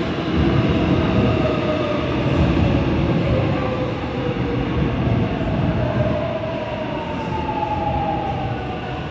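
Seoul Subway Line 7 electric train pulling into an underground station and slowing: a low rumble of wheels and car body, with the electric whine of its traction motors falling in pitch as it brakes. The sound eases off toward the end.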